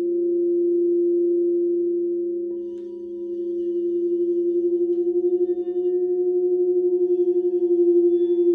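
Several crystal singing bowls ringing together in long sustained tones, a low bowl's note loudest with a pulsing wobble. About two and a half seconds in, a light strike brings in a higher bowl, and more higher notes join around the middle.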